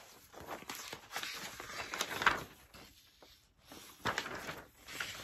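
Large sheets of thin poster paper being lifted, turned and unfolded, rustling and crinkling on and off, loudest about two seconds in.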